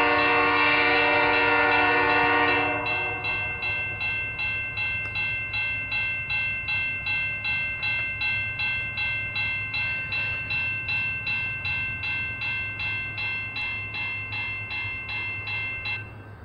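A diesel locomotive's horn chord sounds loudly and cuts off about three seconds in. A railroad crossing bell rings on rapidly, about two to three strikes a second, over the low rumble of the train, and stops abruptly just before the end.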